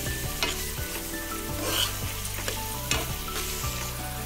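Crumbled cheese and chopped greens sizzling in a hot pan, stirred with a steel spoon. The spoon scrapes and knocks against the pan several times over a steady sizzle.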